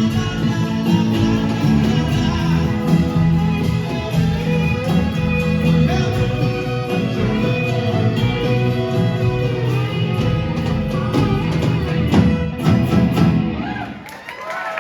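Live folk-rock band playing the closing bars of a song, with guitars, violin, bass and drums, and ending on final chord hits about thirteen seconds in. Audience noise begins as the music stops.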